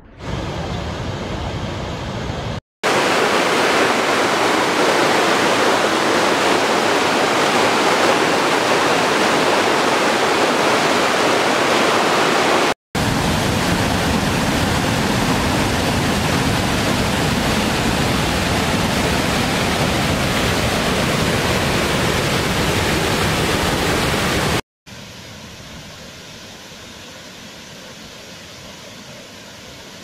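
Waterfalls rushing: a steady, dense sound of falling water from several different falls cut together, broken by three brief dropouts, about 3, 13 and 25 seconds in. The last stretch is quieter and duller than the middle ones.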